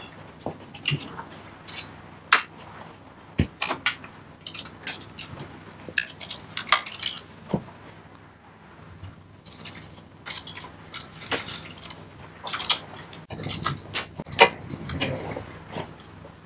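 Irregular metallic clinks and clanks of hand tools and bolts being worked on a clutch pressure plate, with a louder clank near the end.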